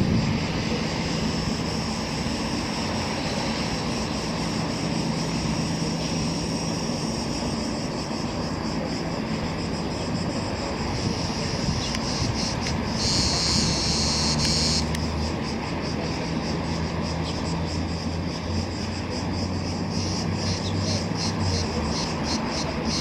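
Low, steady drone of ship engines as a container ship gets under way, with insects chirring over it. A louder high insect buzz lasts about two seconds halfway through, and a fast pulsing chirr comes in near the end.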